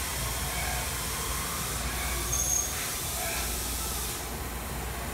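A Haas TM-1 CNC vertical mill running with its coolant pump on: a steady hiss of coolant spray over a low machine hum. A brief high squeal comes about two and a half seconds in, and the hiss thins about four seconds in.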